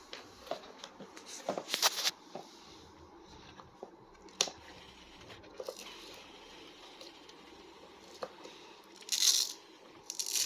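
Scattered metal clicks and knocks from a hand tool on an extension bar working at the car stereo's mounting screws deep in the dashboard, with two longer scraping rasps, about two seconds in and near the end.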